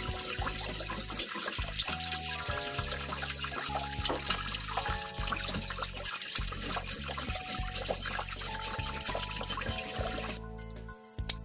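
Tap water running into a stainless steel bowl in a sink as burdock roots are rinsed, over background music; the running water cuts off suddenly near the end.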